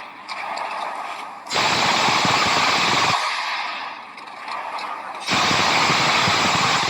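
Two bursts of rapid automatic gunfire, each lasting under two seconds and stopping abruptly. One starts about one and a half seconds in, the other a little after five seconds.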